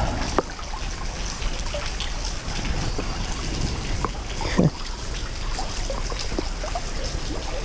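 Stream water running and trickling steadily, with a few light clicks, the loudest about halfway through.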